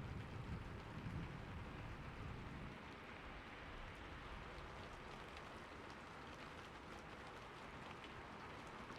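Steady rain falling, an even patter with scattered individual drops. A low rumble underneath stops abruptly about three seconds in.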